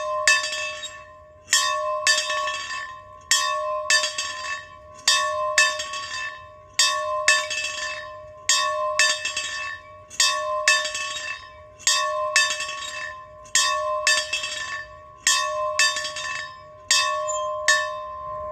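A bell being rung steadily, struck in pairs of two quick strikes about half a second apart, with a pair roughly every second and a half to two seconds. Each strike rings on at the same pitch and fades before the next pair.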